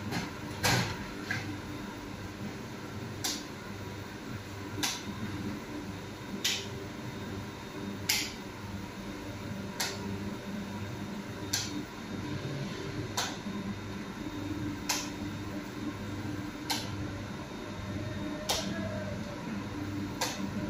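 Steady hum of commercial bakery machinery, with a sharp click repeating about every one and a half to two seconds.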